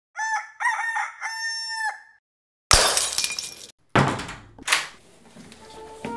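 A rooster crowing a single cock-a-doodle-doo that ends on a long held note. After a short silence comes a loud, sudden crash of shattering glass, followed by two shorter crashes.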